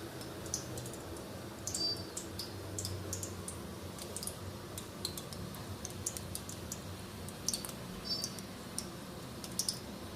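Scattered light clicks and small clinks, irregular and a few per second, over a steady low hum: kitchen handling noises while the sesame sweets are made.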